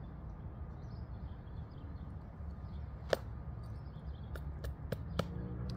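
Outdoor background with a steady low rumble, broken by one sharp click about three seconds in and a quick run of four light clicks a second later.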